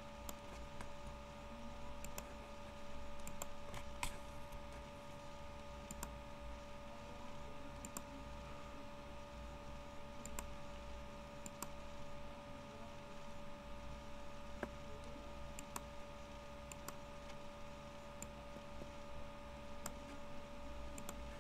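Irregular clicks of a computer mouse and keyboard, a second or two apart, over a steady electrical hum.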